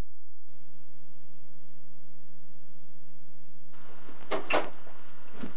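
Steady electrical hum with a faint tone from a VHS tape's blank blue-screen lead-in. About three and a half seconds in, the camcorder sound cuts in with tape hiss. Two short splashes follow close together, then a third near the end, as a snakehead lunges at a hand at the aquarium's water surface.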